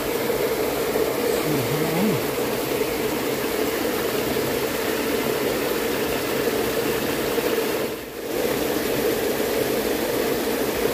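Steady rushing of a small, fast-flowing stream, briefly dropping away about eight seconds in.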